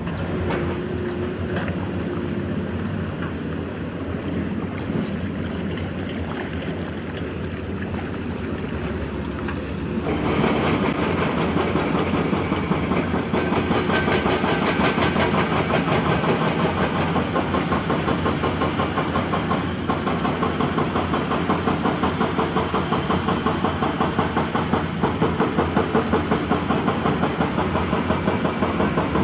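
Heavy diesel engines of an excavator and a dump truck running steadily. About ten seconds in, the sound abruptly gets louder and takes on a fast, even pulsing.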